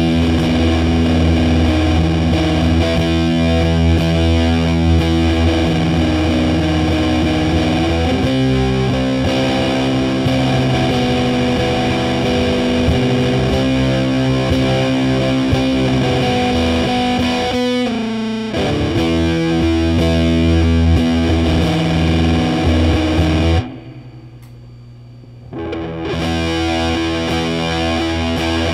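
Electric guitar played through a Big Muff-style fuzz pedal with a Ram's Head tonestack: thick, sustained distorted chords that change every few seconds. There is a short, fast stuttering passage just past the middle. Near the end the sound drops away for about two seconds, then the chords resume.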